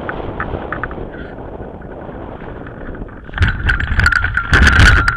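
Air rushing over the microphone of a hang glider gliding in low to land. About three seconds in, as the glider flares and touches down, loud irregular knocks and rattles from the glider's frame come in, along with a steady high tone.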